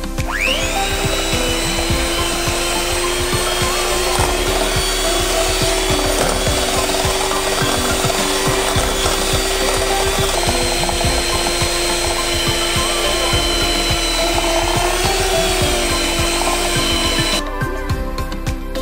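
Electric hand mixer motor spinning up with a rising whine, then running steadily as its wire beaters work flour into thick cookie dough in a stainless steel bowl. It switches off near the end.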